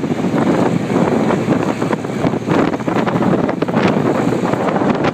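Wind buffeting the microphone of a moving open Cocotaxi, in irregular gusts, with vehicle and road noise beneath.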